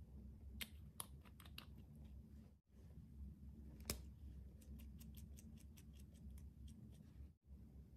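Small sharp plastic clicks from makeup items being handled: a few scattered clicks early on, one louder click about four seconds in, then a quick run of light clicks. Under them a faint steady hum, and the sound drops out briefly twice.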